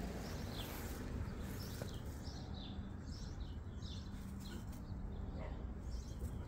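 A small bird chirping repeatedly: a series of short notes, each falling in pitch, over a faint steady low hum.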